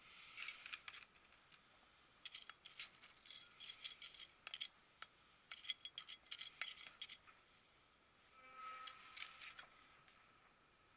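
Small metal hand trowel scraping and scooping gritty potting mix with perlite in plastic pots: three bursts of crisp gravelly scratching and clicking, then a squeakier scrape near the end.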